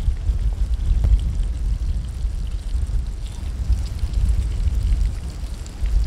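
Wind buffeting the microphone in a loud, uneven low rumble, over faint sizzling of meat frying in a pan on a small camp stove, with a light click about a second in.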